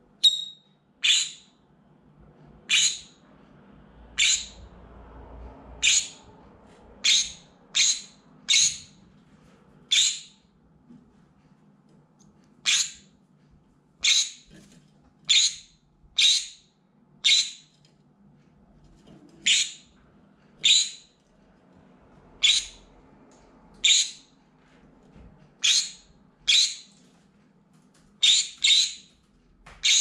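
Green-cheeked conure screaming: about twenty loud, short, high-pitched calls, roughly one a second, some coming in quick pairs.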